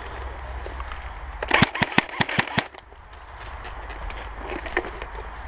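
Airsoft gun firing a quick string of about six sharp cracks over about a second, followed by faint rustling in dry leaves.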